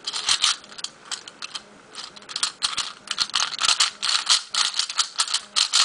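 Plastic clicking and clacking of a miracle sphere, a ball-shaped 3x3 twisty puzzle, as its layers are turned by hand. A few scattered clicks at first, then a fast run of turning clicks from about two seconds in.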